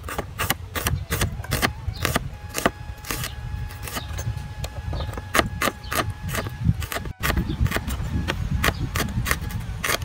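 A large kitchen knife slicing through small red onions held in the hand, a rapid series of crisp cuts, about three a second, over a low steady rumble.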